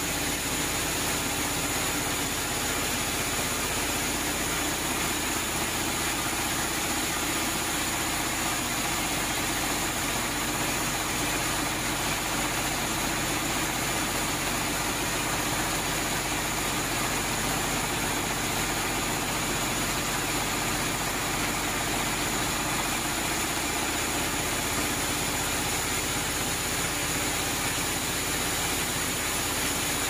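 Vertical band saw running and sawing lengthwise through a large mahogany log: a steady, even machine noise with a few high-pitched tones held over it, unchanging throughout.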